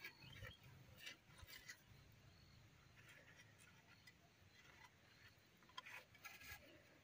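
Faint handling sounds of a thin bamboo strip being wound and knotted around a bamboo joint: soft rustles and small creaks and clicks, a few clustered near the start and again near the end.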